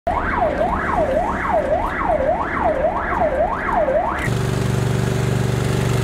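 Rescue van's siren heard from inside the cab, rising and falling about twice a second. A little over four seconds in it cuts abruptly to a small engine running steadily, the motor of the portable fire pump.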